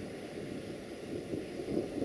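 An Electroputere 060-DA (LDE2100) diesel-electric locomotive approaching under power, its Sulzer diesel engine heard as a low, uneven rumble.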